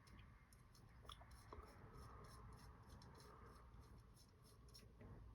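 Faint small clicks and rubbing of a hex driver turning an M3 bolt into a drone frame standoff.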